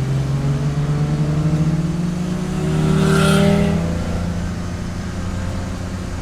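Race car engine pulling under throttle, its pitch climbing slowly for about three and a half seconds, then settling to a steady, lower note. A brief rush of noise swells and fades about three seconds in.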